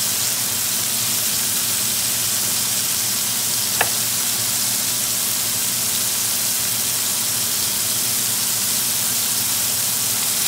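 Burger patties, mushrooms and onion slices frying on a hot stovetop griddle with a steady sizzle, and a single sharp click about four seconds in.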